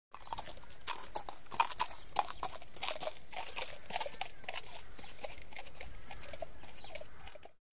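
Horse hooves walking on dry, crunchy ground: irregular crunches and clicks over a steady hiss, cutting off shortly before the end.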